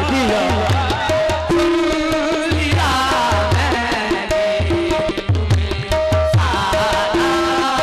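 Qawwali music: a harmonium holding steady notes over a tabla's low, repeated strokes, with a singer's voice weaving in and out.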